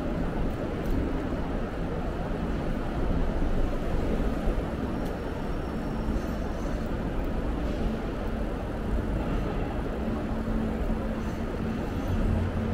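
Steady city street traffic noise heard from a moving bicycle, with a constant low rumble.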